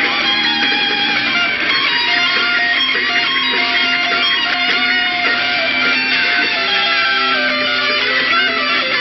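Electric guitar played live on stage, a lead line of held notes that change pitch every half second or so, with some bent notes near the end.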